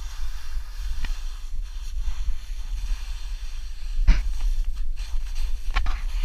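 Wind buffeting a GoPro action camera's microphone as a steady low rumble, with three short knocks: about a second in, a louder one about four seconds in, and another near the end.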